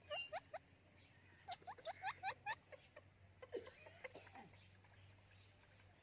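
White Indian ringneck parakeet chattering in soft squeaky chirps. There is a quick run of short notes at the start, another of six or seven about a second and a half in, and a few fainter notes near the middle.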